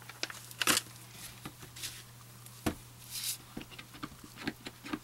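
Silicone spatula stirring mica colourant into soap batter in a plastic measuring jug: irregular small taps and clicks against the jug, with a couple of brief scrapes, over a faint steady low hum.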